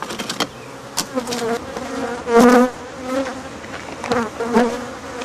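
Africanized honey bees buzzing in flight around the microphone, each pass a short buzz that swells and bends in pitch; the loudest comes about halfway through. The bees are stirred up by their nest being cut out of the eave.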